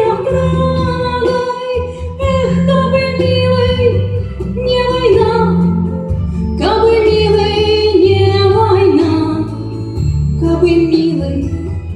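Music from a slow song: a melody over held bass notes.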